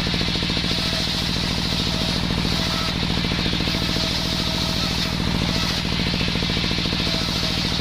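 Small engine of a homemade circular saw running steadily at speed, its firing pulses even throughout, with a high hiss that swells and fades every second or so.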